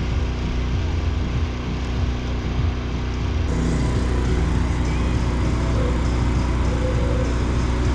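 A small engine runs steadily with an even low hum. From about halfway in, water splashes in a bait bucket as a hand reaches in and stirs it.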